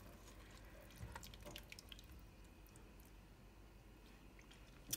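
Near silence, with a few faint soft clicks and wet sounds from a silicone spatula stirring chili beans in a stainless steel pot during the first two seconds, and one sharper click near the end.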